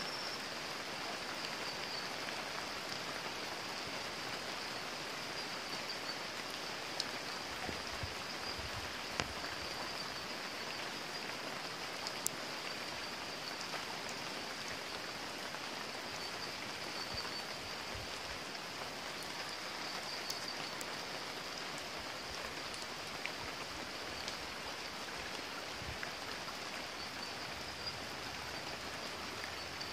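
Steady rain falling, mixed with a shallow rocky stream running over stones, with a few faint ticks along the way.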